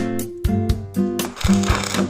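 Instrumental background music: plucked and strummed guitar chords over percussion.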